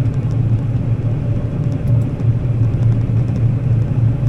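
Combine harvester running while cutting wheat: a steady, loud, low drone.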